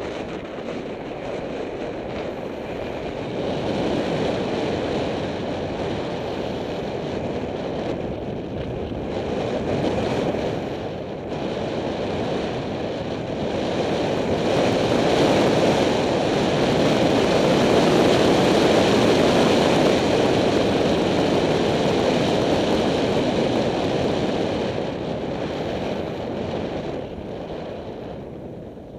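Wind rushing over a helmet camera's microphone on a fast bicycle descent, swelling to its loudest about halfway through and easing off near the end.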